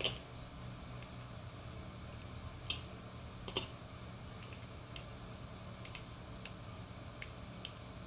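TheOne Falcon balisong being flipped: short sharp clicks at irregular intervals as the handles swing around the pivots and knock together, the loudest right at the start and about three and a half seconds in. A low steady hum lies underneath.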